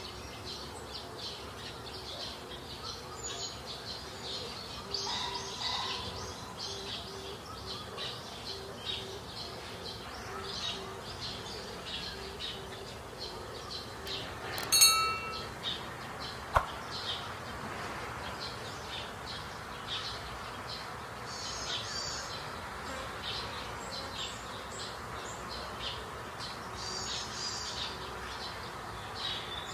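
Birds chirping and insects buzzing in the background. About halfway through comes a short bright chime, then a single click, typical of a subscribe-button animation.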